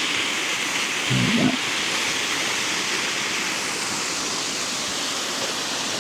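Steady rush of a nearby waterfall, with a brief low pitched sound about a second in.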